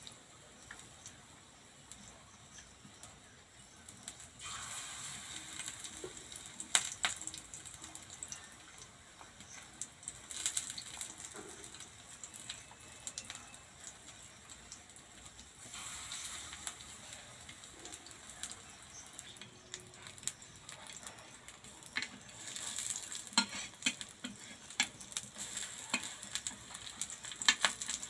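Gram-flour-battered Malabar spinach leaves frying in oil in a shallow iron pan, a steady sizzle that swells several times as fresh battered leaves go in. Scattered sharp clicks sound over it.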